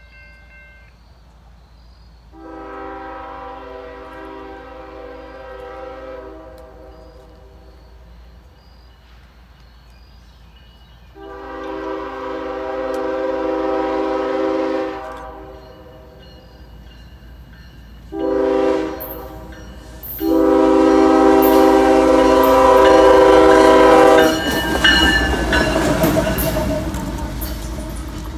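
CSX freight locomotive's multi-note horn sounding the grade-crossing signal (long, long, short, long), each blast louder as the train approaches. The locomotive then passes close by, with a loud engine rumble and clicking wheel noise on the rails.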